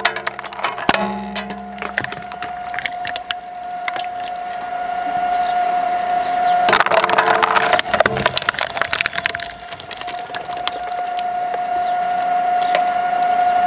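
Twin-shaft shredder's steel cutters cracking and crunching hard red plastic toy parts, in two bouts: a spell of cracks at the start and a denser burst about seven seconds in. Under it, the shredder's motor runs with a steady whine.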